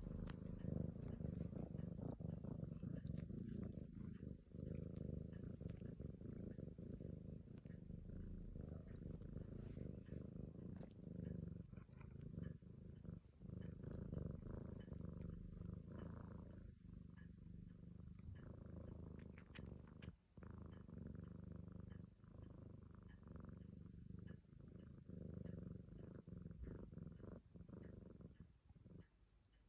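Black-and-white kitten purring steadily as it dozes, with a few brief breaks; the purr fades out near the end.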